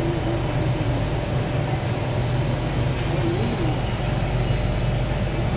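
C751A metro car standing at a station with its doors open: a steady low hum from the car's onboard equipment, with no motor or wheel sound.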